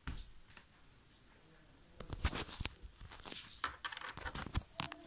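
Close rustling, rubbing and clicking handling noises from a phone held against the body and clothing, a string of short scrapes starting about two seconds in.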